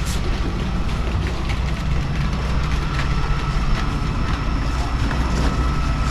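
Concrete mixer truck running steadily during a slab pour, a low diesel rumble with a faint steady whine and scattered light knocks.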